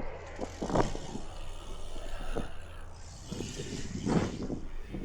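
Wind buffeting the microphone in uneven gusts while a BMX bike rides a paved pump track, with a few sharp knocks and rattles from the bike.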